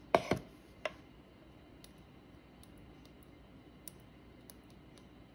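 A few short knocks as a small stamp ink pad is set down on the worktable. Then come faint, scattered clicks of fine-tipped craft tweezers picking at the double-sided adhesive backing on a small card-stock piece.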